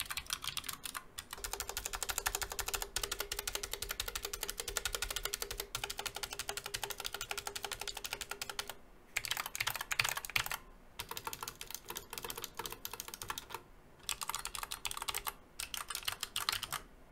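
Fast typing on a Redragon Shrapnel low-profile keyboard with clicky Outemu low-profile switches: a rapid run of key clicks, broken by a few short pauses. The switches have an unusual click and a noticeable ping.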